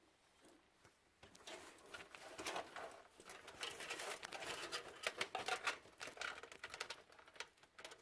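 Rapid small clicks and rustling as the front-panel USB cable is handled and pulled through the cable-routing openings of the PC case, starting about a second in.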